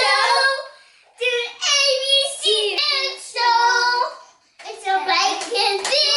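A child singing in a high voice, in three phrases with short breaks about a second in and again past the middle.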